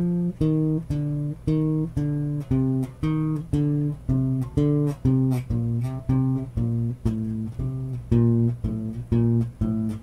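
Electric bass guitar played fingerstyle: a steady run of single plucked notes, about two and a half a second, each struck sharply and ringing briefly into the next.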